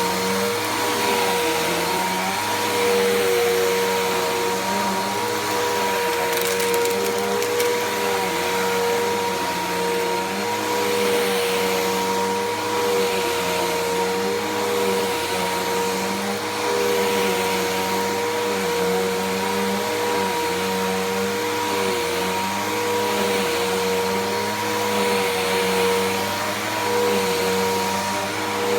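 Bissell PowerForce Helix Turbo vacuum cleaner running steadily while vacuuming, a constant motor whine with a lower hum that wavers in a slow, regular pattern about once a second.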